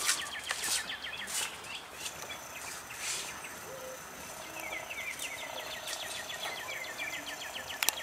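A bird trilling in rapid series of short repeated chirps: a short bout at the start and a longer one from about five seconds in. Underneath is a steady outdoor background hiss with a few brief rushes of noise.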